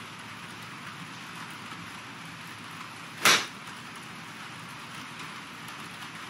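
A 60-degree wedge striking a golf ball off a hitting mat on a half swing: one sharp click about three seconds in, over steady rain hiss.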